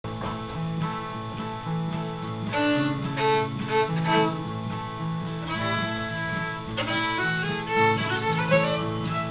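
A fiddle playing a tune with an acoustic guitar strumming a rhythm accompaniment underneath.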